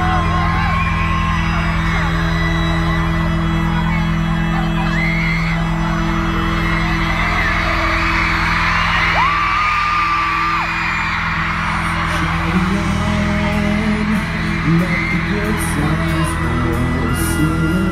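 Arena concert intro music, a held synth drone over a pulsing low beat, under a crowd of fans screaming and whooping. About twelve seconds in, a moving line of notes joins, and sharp high ticks come in near the end.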